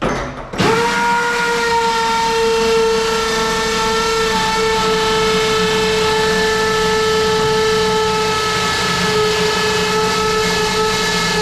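Power drill running continuously under load, a steady high whine that sags slightly in pitch, starting about half a second in.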